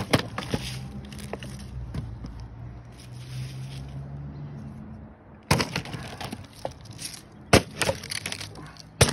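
Heavy Ka-Bar Snody Big Boss chopping knife hacking at a plastic water bottle on a wooden board: one sharp chop at the start, then three more hard chops in the second half.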